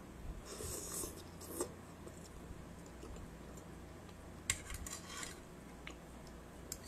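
Faint sounds of a person eating noodles: a brief slurping hiss about a second in, then a few light clicks of a fork against the bowl around the middle.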